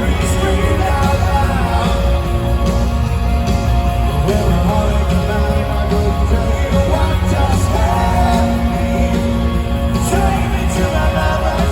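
Live rock band playing in an arena, loud with heavy bass, with singing over it, recorded from the audience.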